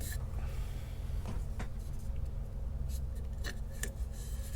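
Pencil scratching as it marks lines on a turned tawa wood piece, with a few short sharp clicks, over a steady low hum.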